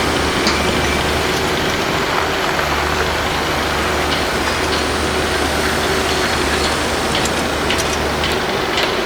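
Construction-site noise: a heavy engine running steadily with a low drone, and scattered short clicks and knocks over it.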